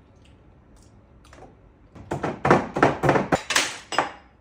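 A quick run of sharp knocks and clatter, about eight strokes in two seconds, starting about two seconds in and stopping just before the end.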